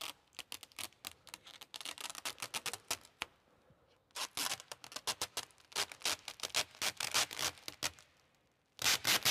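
Protective plastic film being peeled off a new car's windscreen: a dense crackling tear that pauses briefly about three and a half seconds in, thins out near the end, then breaks into a loud burst.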